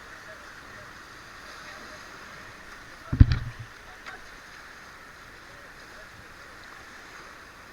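Steady rush of river water, with a loud low thump about three seconds in followed by a couple of lighter knocks.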